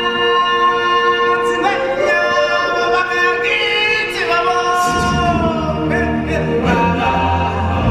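Stage-show music led by a choir of voices singing long held notes, with little backing at first; a low bass accompaniment comes back in about five seconds in.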